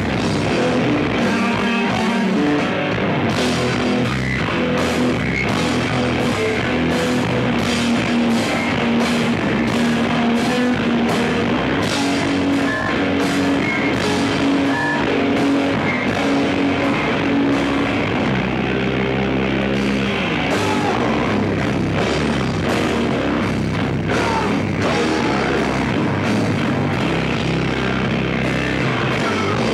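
Live rock band playing loud through amplifiers: distorted electric guitar, electric bass and a drum kit, with regular cymbal hits over a sustained bass line.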